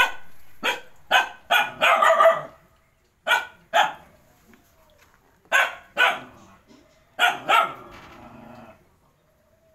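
Dog barking: a quick run of about six sharp barks, then three pairs of barks spaced a couple of seconds apart.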